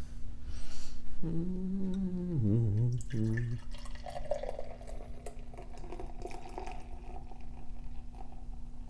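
Lager being poured from a can into a glass: liquid running and fizzing for several seconds, from about four seconds in until near the end. Before it comes a short low hummed note that drops in pitch.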